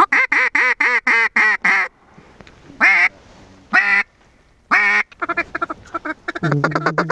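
Hand-held duck call blown by a hunter to draw in ducks circling the decoys: a quick run of about seven quacks, then three single quacks about a second apart, then a fast chatter of short notes near the end.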